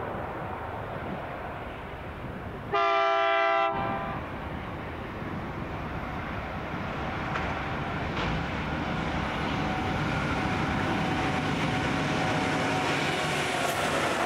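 Freight train hauled by three diesel locomotives approaching, its rumble of engines and wheels on the rails slowly growing louder. About three seconds in, the locomotive horn sounds one blast, about a second long.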